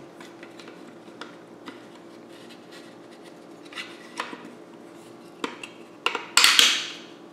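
Metal and plastic parts of a DF83 flat-burr espresso grinder being handled and fitted back together during reassembly: small clicks and taps, then a louder sharp clatter about six seconds in.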